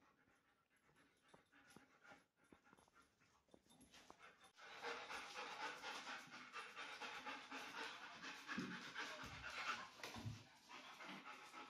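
A dog panting, faint and fast, starting about four and a half seconds in after near silence and pausing briefly near the end.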